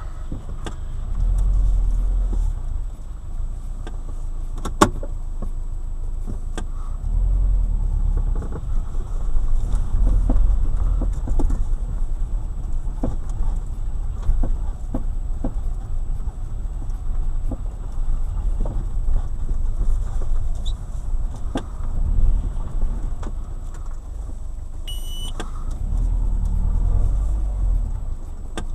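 Subaru Forester driving over bumps, with sharp knocks from the front right suspension over the low rumble of the car. The suspension fault behind the knocking has not been traced by the owner. A brief high tone sounds near the end.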